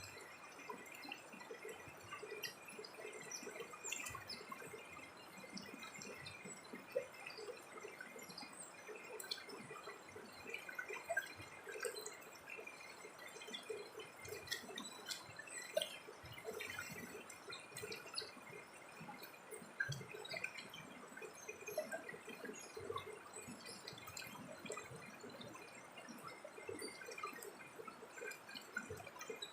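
Faint, irregular dripping and trickling of water, many small drops and blips, over a faint steady high tone.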